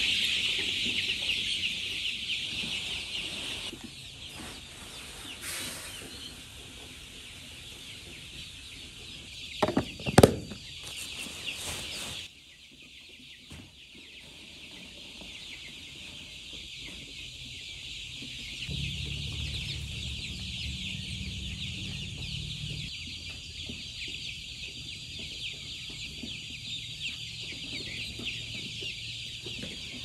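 A large flock of young chicks peeping in a continuous high chorus, with a few loud knocks about ten seconds in.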